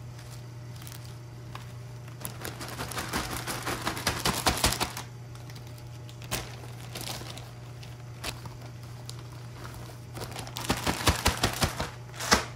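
Plastic zipper bag crinkling in two stretches of rapid crackles as leftover salad greens are packed into it, over a steady low hum.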